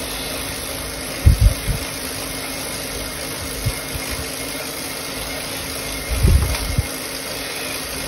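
Indoor cycling smart trainer running under steady pedalling: a steady mechanical whir with a faint low hum. Two short clusters of low thumps come about a second in and again about six seconds in.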